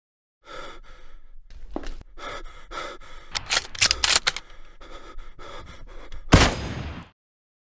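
Cartoon sound effects: a man's heavy panting and gasping, a quick cluster of sharp clicks around the middle, then a single loud gunshot about six and a half seconds in.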